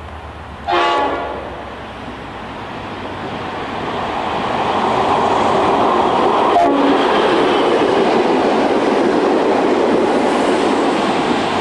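Diesel locomotive horn sounds one short blast about a second in. Then the locomotive and its passenger carriages approach and pass close by, with engine and wheel noise building to a steady rush. A second brief toot comes about halfway through.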